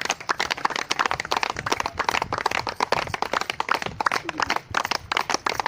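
A group of people clapping their hands: a dense run of quick, uneven, sharp claps.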